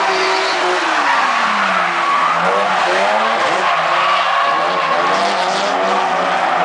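Drift cars sliding through a corner: engines revving, their note falling and rising several times, over a continuous screech of tyres spinning and sliding.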